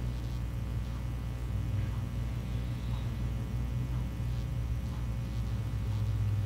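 Steady low electrical hum, with faint soft ticks about once a second.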